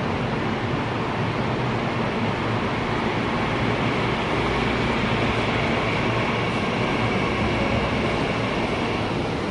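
Kintetsu 50000 series Hinotori electric train running along the platform, a steady rumble of the passing cars with a faint high whine through the middle seconds.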